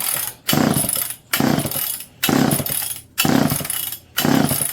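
Homelite EZ two-stroke chainsaw being pull-started: a quick series of about six pulls on the recoil starter cord, roughly one a second, each a rasping whir of rope and cranking engine. The engine does not catch.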